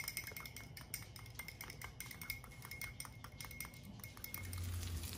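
Small metal spoon stirring maple syrup and Dijon mustard in a ceramic ramekin, clinking lightly and rapidly against the bowl's sides.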